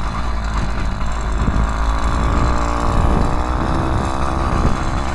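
Small two-stroke engine of a motorized bicycle kit running steadily as the bike is ridden.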